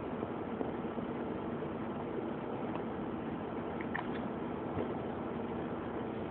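Steady background hum with faint steady tones, with a few faint clicks and taps about four seconds in.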